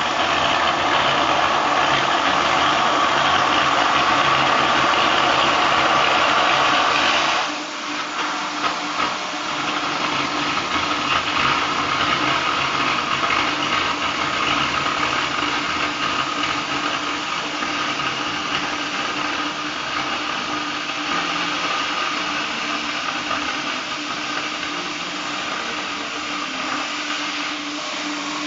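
Oxy-fuel cutting torch on a CNC gas profile cutter burning through steel plate: a steady hiss of the gas jet. It drops suddenly in level about seven seconds in, then goes on steadily with a faint low hum beneath.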